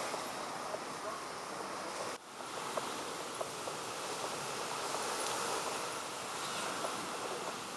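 Steady wash of small waves and wind along the shore, with a brief dropout about two seconds in.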